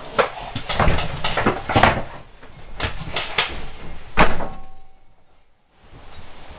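Irregular knocks and clatter, with one loud knock about four seconds in, followed by about a second of near silence.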